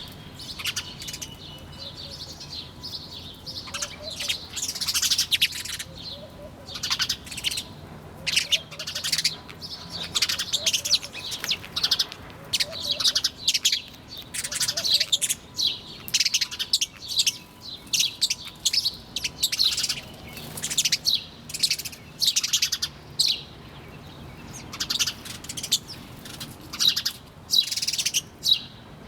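Small birds chirping busily: a dense run of short, high chirps overlapping one another, with a few brief gaps.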